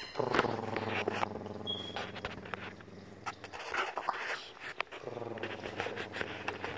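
A man imitating a cat's purr in his throat, a low steady rumble, with a break of about two seconds midway. It is done to soothe a newborn kitten lying on his chest, and the kitten has stopped meowing.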